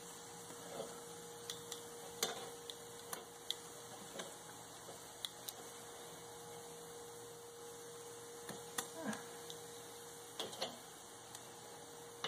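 Metal grill tongs clicking and scraping against the grate of a charcoal kettle grill as pork steaks are moved, a dozen or so scattered sharp clicks over a steady hum.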